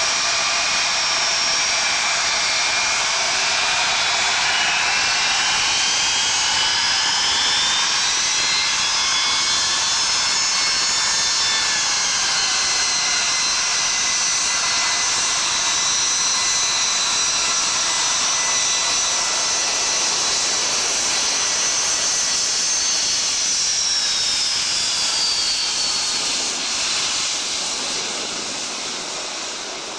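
Jet engines of a four-engined jet airliner running on the runway. Their whine rises in pitch over the first several seconds, holds steady, then falls in pitch and fades over the last few seconds as the aircraft moves away.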